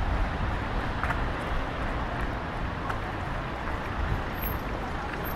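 Outdoor city ambience: a steady low rumble and hiss of distant traffic and air, with a few faint clicks.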